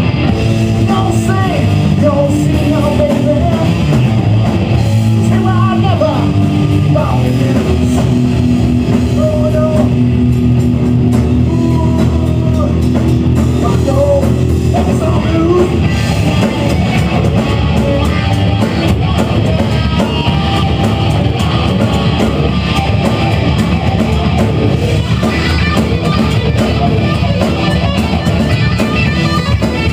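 Live rock band playing loud: electric guitars and a drum kit with a singer's voice, with held melodic notes in the first half and a thicker, busier guitar sound from about halfway on.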